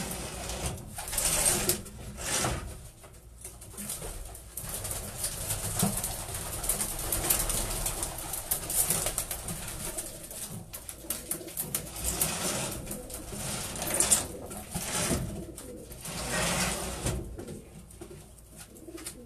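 Racing pigeons cooing in a loft, broken by several short flurries of wing flapping as a bird is caught by hand.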